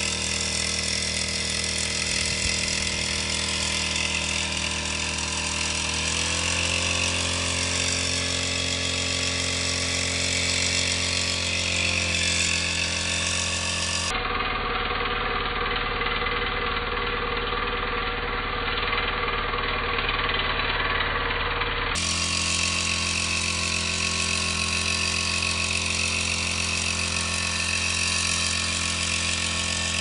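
Small engine of a backpack power sprayer running steadily under load while it blows a pesticide mist, its pitch shifting slightly a few times.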